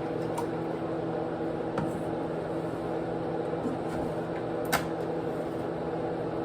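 Steady low hum of a running appliance, with a few light clicks and one sharper clink about three-quarters of the way through.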